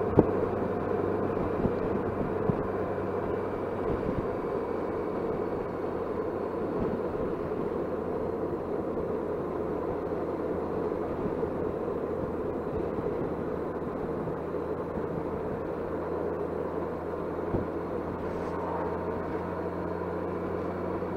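Touring motorcycle cruising at a steady speed: a constant engine hum and road noise picked up by a microphone inside the rider's helmet chin guard, with a few sharp clicks.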